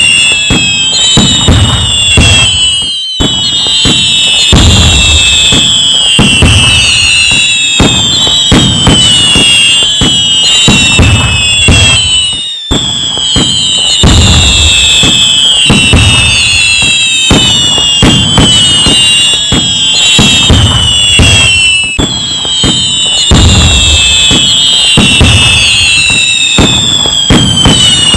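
Loud fireworks barrage: many overlapping whistles falling in pitch over a continuous mix of crackling reports and deep booms.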